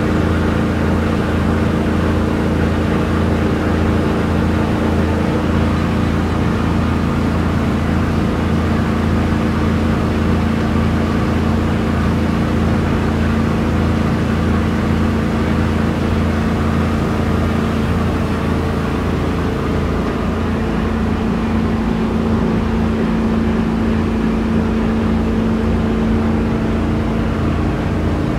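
Bayliner 2459 Trophy motorboat's engine running steadily at planing speed, about 26 knots, with the rush of water along the hull. The drone holds an even pitch, shifting slightly about two-thirds of the way through.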